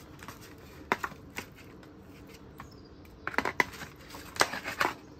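Metal tongs clicking and scraping against a disposable aluminium foil pan as sauce-coated pork ribs are tossed. Scattered light taps, a couple about a second in, then a quick run of them after about three seconds.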